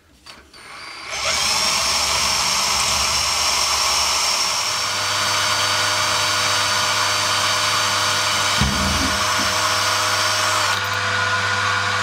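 Cordless drill running steadily as its bit bores into the end of a steel rod clamped in a vise. It starts about a second in, and a couple of dull knocks come through about nine seconds in.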